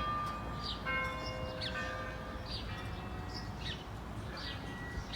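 Church bells struck twice near the start, ringing out and fading over about two seconds. A bird repeats a short, high, falling chirp about once a second throughout.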